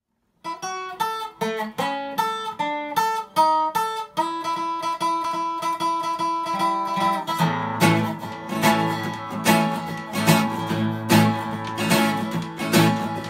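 Acoustic guitar and resonator guitar duet, playing an instrumental intro. It opens with a single-note lead line picked note by note, settles into held notes, and at about seven seconds a second guitar joins with full strummed rhythm chords and bass notes.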